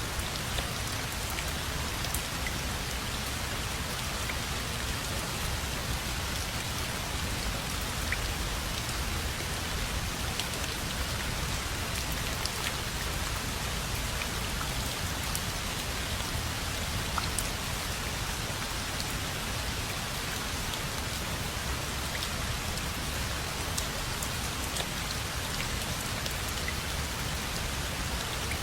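Steady rain falling and pattering on surfaces, an even hiss with scattered individual drop ticks.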